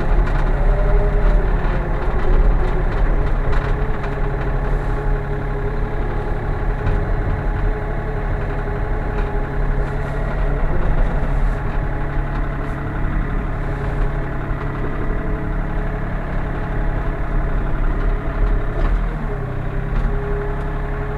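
Sany SY35U mini excavator's diesel engine idling steadily, heard from inside the cab, with the engine still cold from its start.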